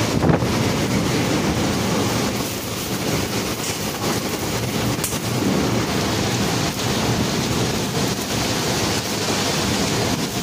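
Heavy rain and strong wind of a rainstorm: a steady, even hiss with a low rumble underneath.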